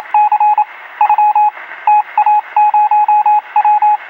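A single high electronic tone keyed on and off in quick short and longer beeps, grouped with brief gaps, like Morse code over a radio.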